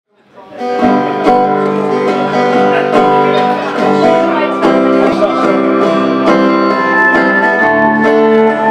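Live rock band playing an instrumental intro: strummed acoustic and electric guitars over a steady drum beat, fading in over the first second.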